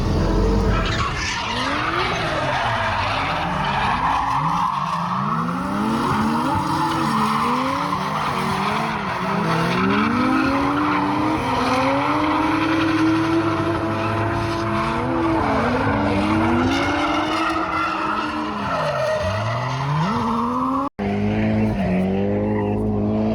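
A drift car's engine revving up and down over and over while its tyres squeal through a long slide. The sound cuts out for an instant near the end.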